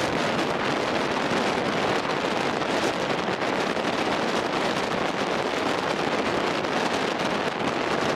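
Steady wind rushing over the microphone on the deck of a ship under way at sea: a dense, even hiss with no distinct events.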